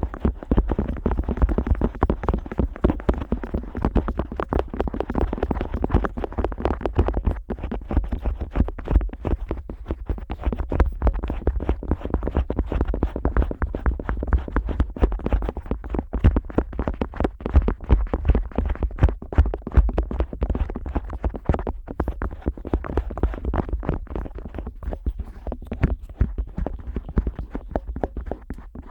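Otoscope rubbing and scraping on the ear of a Neumann KU100 dummy-head microphone, heard very close: a continuous stream of rapid scratchy rubs with a deep, muffled low end.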